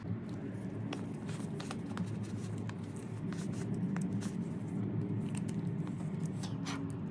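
Scattered light clicks and taps of metal lathe tailstock parts being handled and fitted by hand, over a steady low background hum.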